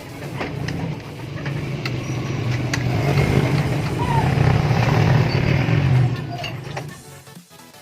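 A motor vehicle engine running, growing louder over several seconds and then fading away about six seconds in, with a few light clicks over it.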